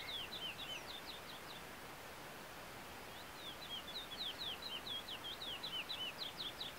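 Male chestnut-bellied seed finch (curió) singing: a quick run of high whistled notes that breaks off about a second and a half in, then starts again after a pause of nearly two seconds.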